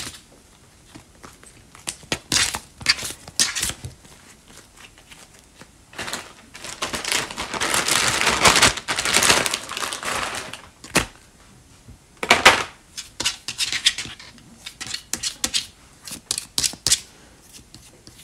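A large plastic cookie cutter being pressed into a sheet of air-dry foam clay and the surrounding clay peeled away by hand. Scattered clicks and taps of the cutter on the cutting mat, with a longer, louder tearing rustle in the middle as the excess clay is pulled off.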